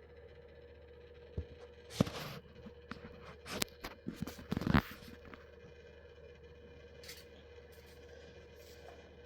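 A cluster of sharp clicks, knocks and short scraping noises between about two and five seconds in, the loudest near two seconds and just before five seconds. A faint steady hum runs underneath.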